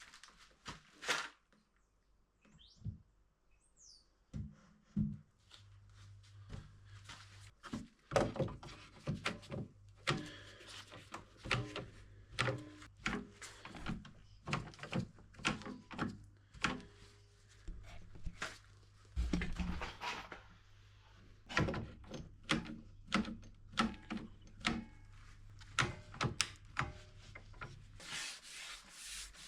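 Oak cabinet top being glued and clamped back on: a long run of irregular knocks, clicks and thunks as wood is handled and clamps are set and tightened, over a faint steady low hum.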